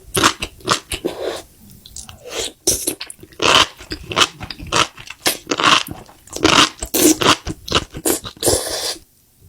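Crunchy food being bitten and chewed close to the microphone, in loud irregular crunches a few times a second that stop about nine seconds in.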